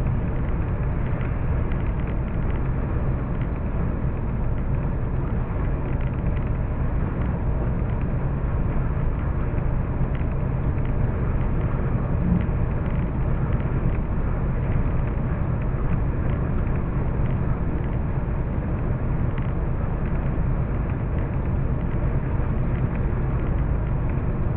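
Steady engine and road noise of a vehicle cruising on a highway, heard inside the cab through a dashcam's microphone, with a constant low hum.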